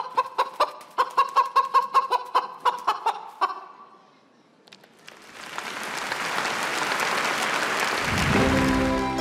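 Rapid chicken-like clucking in the dance music, about four or five clucks a second, stopping abruptly after a few seconds. After a second of near quiet, audience applause rises and holds, with music starting again near the end.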